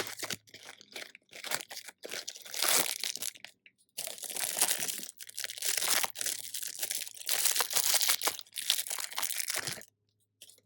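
Plastic packaging crinkling and tearing in irregular bursts as a squishy toy is unwrapped. It stops abruptly near the end.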